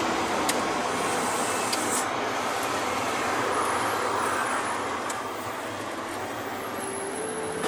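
Steady road and traffic noise of a car driving on a highway, heard from inside the car: tyre and engine hum with passing traffic.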